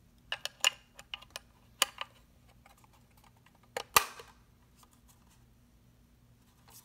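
Hard plastic battery cover of a small ultrasonic anti-bark unit being pried off by hand: a quick run of sharp plastic clicks and scrapes over the first two seconds, then one louder click about four seconds in.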